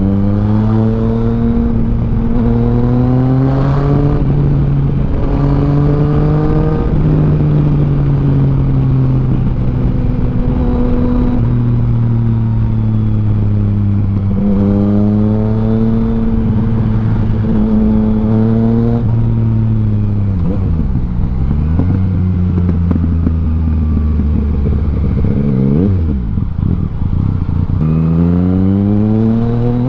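Yamaha Tracer 900's inline three-cylinder engine through an Akrapovic full exhaust system, heard from the saddle while riding. It pulls up through the gears in a run of rising revs broken by quick shifts, drops back twice a little past the middle, then accelerates again near the end.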